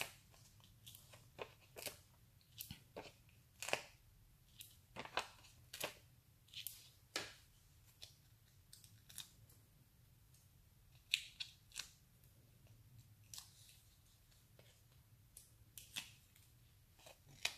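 Faint, irregular crisp ticks and crackles of adhesive foam dots (Stampin' Up! Dimensionals) being peeled off their paper backing sheet and pressed onto card stock, about one or two a second.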